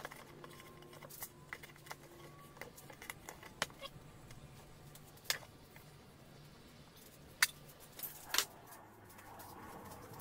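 Scattered small clicks and taps from a knife and cut tyre rubber being handled, as the zigzag-cut sidewall of a car tyre is cut free and lifted out, over a faint low steady hum.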